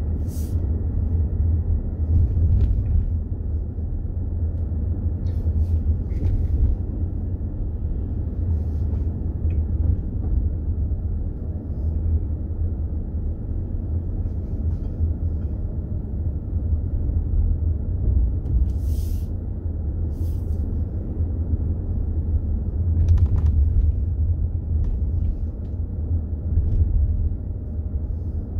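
Low, steady rumble of a car driving slowly, heard from inside the cabin, with a few brief faint clicks.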